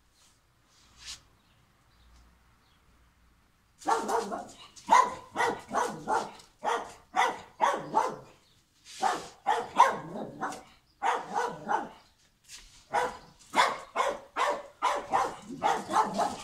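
A dog barking over and over, about two barks a second with a couple of short pauses, starting about four seconds in.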